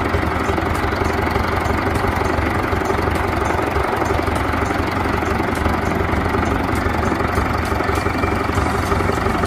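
A wheeled excavator's diesel engine running steadily while it digs and loads soil.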